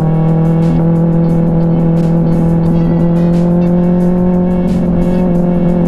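Motorcycle engine running at steady cruising revs, heard on board. It gives one even, unchanging note.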